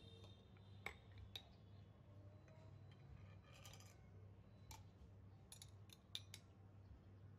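Faint, sharp clinks of a metal spoon and glass jars being handled: two clinks about a second in, a short rattle midway, and a quick cluster of clinks later on.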